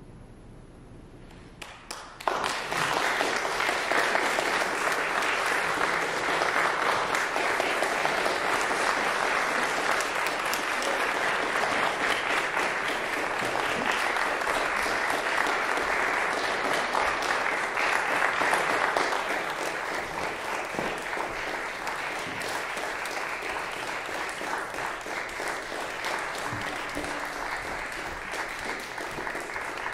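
Audience applauding. The applause breaks out suddenly about two seconds in after a quiet moment and eases off slightly in the last third.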